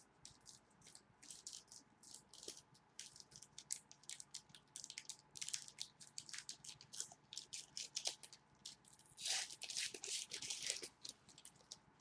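Trading cards and pack wrappers being handled: quick, irregular scratchy rustles and crinkles as cards slide against each other, loudest and busiest about nine to eleven seconds in.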